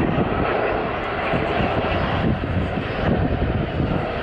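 Jet airliner engines heard as a steady, even noise without distinct tones.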